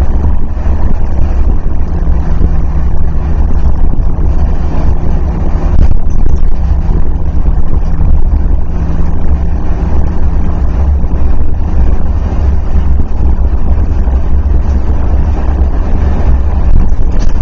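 Steady, loud low rumble of road and wind noise inside a vehicle driving at highway speed in strong wind, with a faint steady engine hum underneath.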